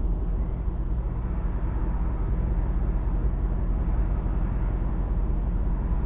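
An engine running steadily at idle: a low, even rumble with a faint hum above it.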